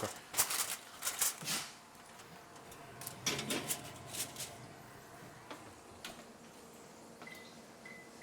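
Metal pan and oven rack clattering as a pan of asparagus is slid into the oven and the oven door is shut, in two bursts of knocks and clanks. A faint repeated high tone begins near the end.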